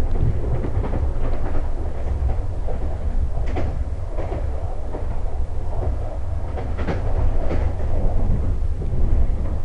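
Passenger train running along the line, heard from inside the carriage: a steady low rumble of wheels on rail, with a few sharp clacks from the track.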